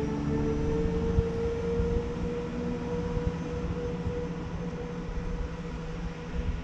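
Diesel passenger train pulling out of the station, a steady engine note rising slowly in pitch as it gathers speed, over a low rumble.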